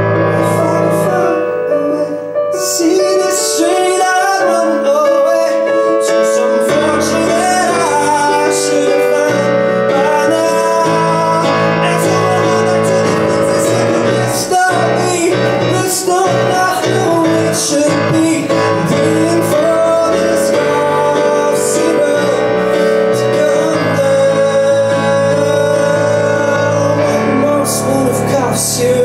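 Live music with keyboard and guitar playing steadily, and sharp regular strokes in the high end.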